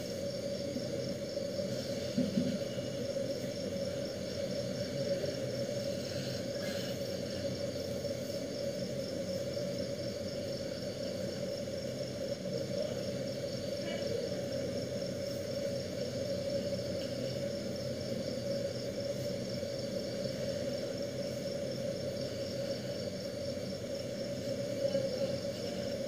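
Steady background hum with a fast, high-pitched pulsing chirr over it.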